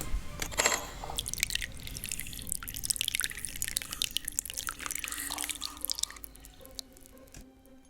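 Water dripping and splashing in quick, irregular drops, tapering off after about six seconds.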